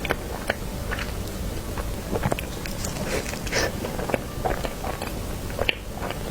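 Close-miked eating sounds of someone eating cake: irregular soft mouth clicks and chewing smacks.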